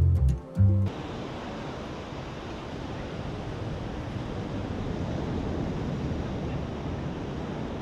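A piece of music ends in the first second with two low booming hits, then a steady rush of wind buffeting the microphone, mixed with surf breaking on the beach.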